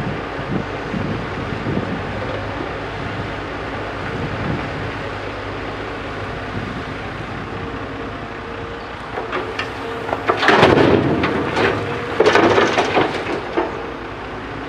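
A JCB backhoe loader's diesel engine running steadily at work. About ten seconds in, two loud rumbling, clattering surges rise over it, each lasting a second or so.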